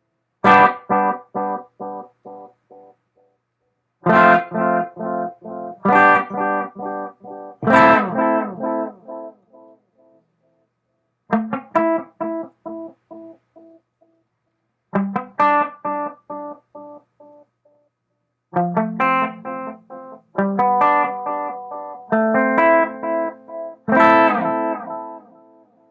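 Electric guitar chords from a Fender Telecaster played through a Tachyon Delay pedal and a Panama Conqueror amp. Each strummed chord is followed by a run of quick echoes, about three a second, that fade away. The pedal's flux knob is at about noon, midway between clean and dirty repeats.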